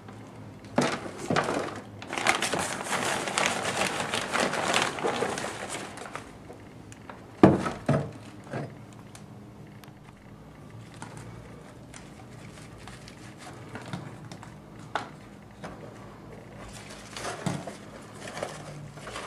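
Hand trowel scooping and scraping potting soil into a plastic planter, with a plastic sheet crinkling, for several seconds; one sharp knock about seven and a half seconds in, then fainter scattered clicks and rustles.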